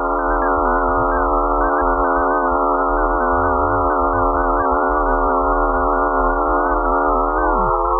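Sonification of data from Mars's moons Phobos and Deimos: a dense electronic drone of many steady, slightly wavering tones sounding together, starting abruptly. Near the end a few of the lower tones glide down in pitch.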